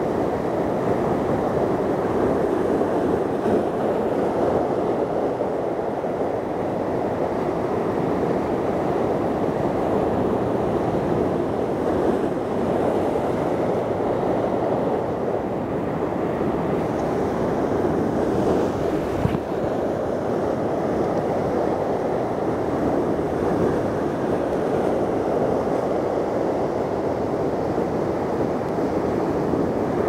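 Rough sea surf breaking and washing over shore rocks, a steady unbroken rush of water.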